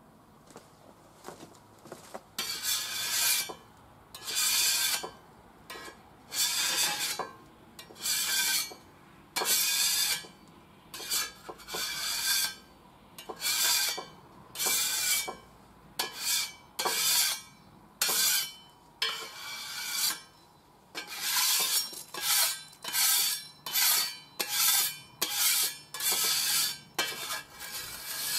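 A metal scraper rasping across a steel hot plate in repeated strokes, scraping off the burnt-on remains after cooking. The strokes come about one a second at first and grow quicker and shorter in the second half.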